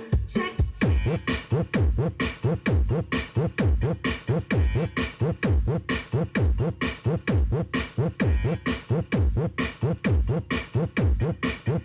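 Electronic dance music with a fast, heavy kick drum, about four beats a second, each kick sliding down in pitch, played over a mobile sound system's speakers.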